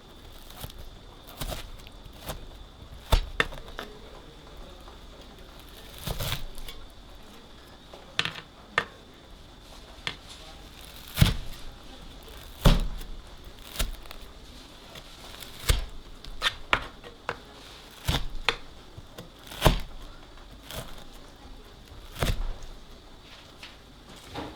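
Kitchen handling sounds: irregular sharp knocks and clicks, roughly one every second or two, over a faint steady high-pitched hum.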